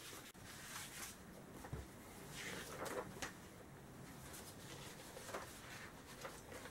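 Faint handling noises from a motorcycle chain breaker and riveter kit: scattered light clicks and rustles as the tool, its parts and case are moved about.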